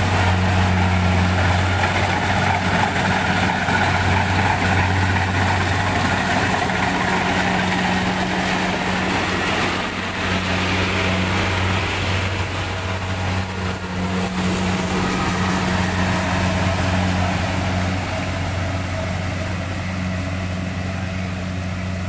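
Kubota DC-70G Plus crawler combine harvester's diesel engine running steadily while the machine cuts and threshes rice, a continuous low drone with a wide noisy rush from the working machinery over it.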